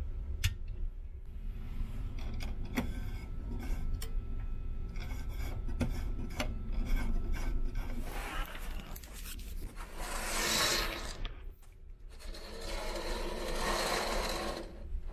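Scattered light clicks and handling knocks, then from about eight seconds in the capsule bunk's fabric curtain rustling and sliding in two long sweeps, over a steady low hum.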